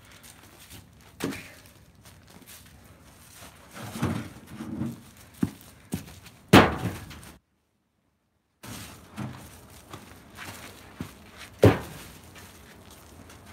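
Heavy ash firewood rounds thunking as they are set down onto a woodpile, wood on wood, a few seconds apart, with footsteps between. The two loudest thuds come just past the middle and near the end. The sound cuts out completely for about a second in between.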